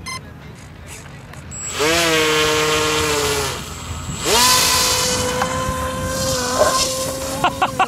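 Dynam Hawk Sky RC plane's electric motor and propeller whining up sharply about two seconds in, dropping off after a second and a half, then spinning up again and holding a steady whine as the plane rolls along the ground and lifts off.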